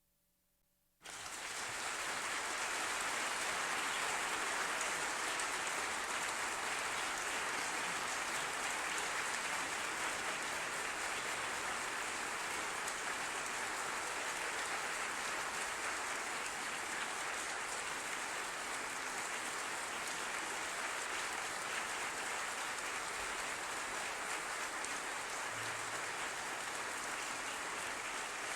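A crowd applauding, a dense, steady sound of many hands clapping that starts suddenly about a second in.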